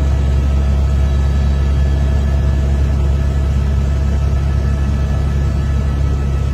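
Helicopter running in flight: a loud, steady low drone with a few faint, steady high whines above it.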